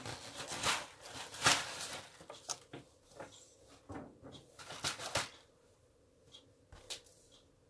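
Handling noise: a run of knocks, rustles and small clicks as objects are moved about on a table, thinning out to a few faint clicks after about five seconds.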